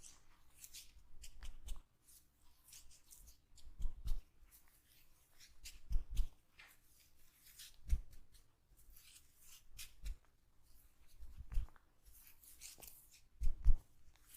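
Hands massaging oiled hair and scalp: rustling and rubbing of the hair, with a soft low thump about every two seconds.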